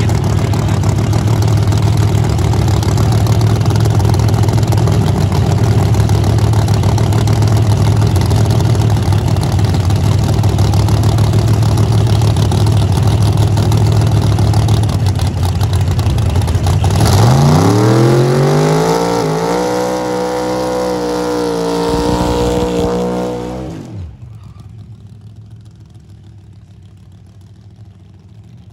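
A 1955 Chevrolet drag car's engine idling loud and steady, then revving up over a few seconds and holding high revs, as in a burnout in the water box. The sound cuts off suddenly, and a much quieter engine rumble follows.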